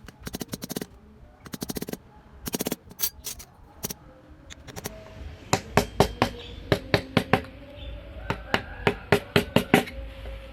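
Hand wood carving: a mallet tapping a carving chisel into hardwood, first in quick bunched runs of taps, then single sharp taps at about four to five a second through the second half.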